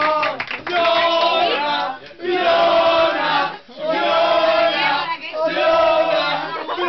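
A group of party guests singing together loudly in unison, in phrases of held notes about a second and a half long, each broken by a brief pause.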